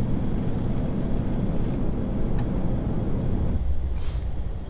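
Steady low rumble of airflow and engines on an Airbus A380 flight deck during the approach, easing somewhat about three and a half seconds in, with a short hiss near the end.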